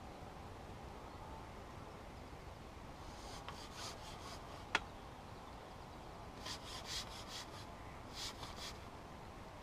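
Handling noise: a few short bursts of rubbing and scraping as the carbon fishing pole is moved through the angler's hands against his clothing, with one sharp click just before the middle, over a faint steady hiss.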